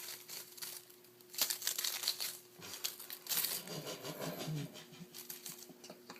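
Scratching, rustling and crinkling as kittens scramble and play, in quick irregular bursts of small scratchy clicks.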